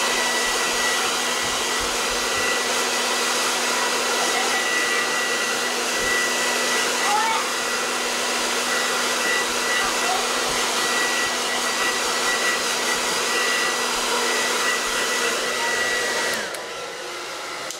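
Hair dryer running steadily, a rush of air with a constant whine, then switched off near the end.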